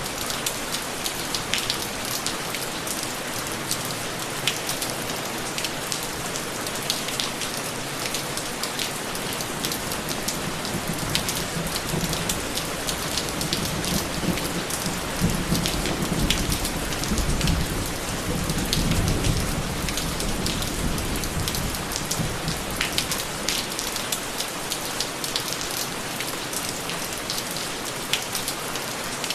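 Steady rain falling, with scattered sharp drop hits. About halfway through, a low rumble of thunder swells for several seconds and then fades back under the rain.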